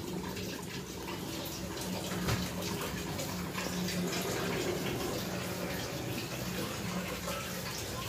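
Persian cat eating boiled fish from a steel bowl: quick wet chewing and smacking clicks, over a steady low hum.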